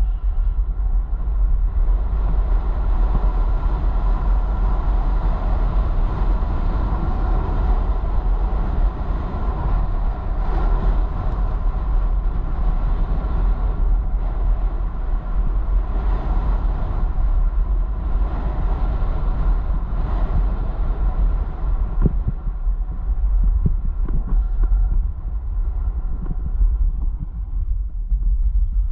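Wind buffeting the camera's microphone at speed, a heavy low rumble, with the hiss of edges sliding and scraping over groomed snow. The hiss fades near the end as the rider slows.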